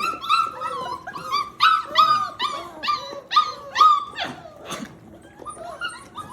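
Five-week-old mastiff puppies whining and yipping in a quick run of short, high, falling cries, several a second. They are frustrated at a barrier that stands between them and their food.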